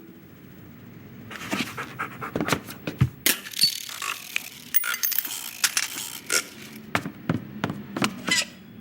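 Animated-film sound effects: quick breathy panting mixed with scattered clicks, knocks and scrapes, starting about a second in after a near-quiet opening.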